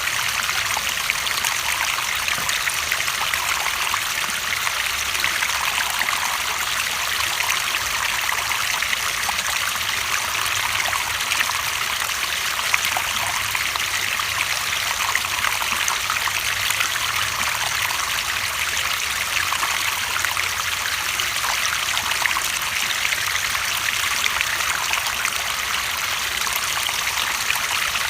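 Running water in a small stream, trickling and splashing steadily with an even hiss.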